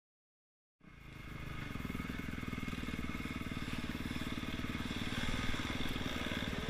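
Yamaha YZ dirt bike engine running steadily at riding speed, heard close up from the rider's helmet camera; the sound starts about a second in.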